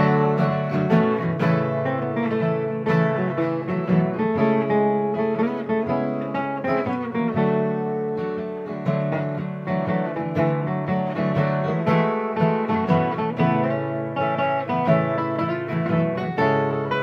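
Live acoustic band playing an instrumental break: strummed acoustic guitar with picked plucked-string lines, in a country/bluegrass style.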